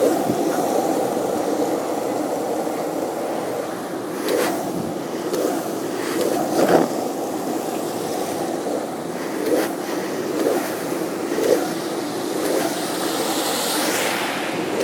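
Skateboard wheels rolling over wet pavement: a steady rumble with a sharp clack about once a second, and a swelling hiss near the end.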